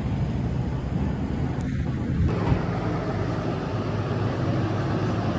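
Idling vehicle engines: a steady low rumble, with an abrupt change in its texture about two seconds in.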